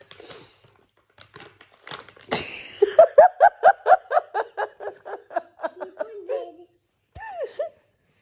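Giggling laughter: a quick run of about five ha's a second that lasts about four seconds. Before it comes the crinkle of a plastic wet-wipes packet being handled, and near the end a short vocal sound.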